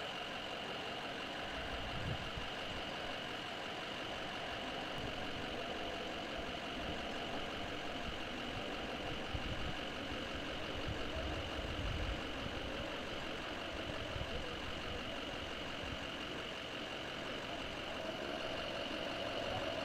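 Vehicle engines idling steadily, with a constant high-pitched tone over the top and a few brief low rumbles.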